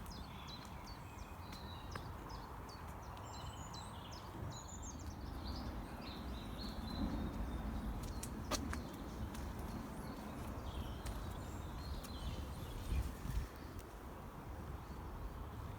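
Small birds chirping and singing in short, scattered phrases over a steady low rumble.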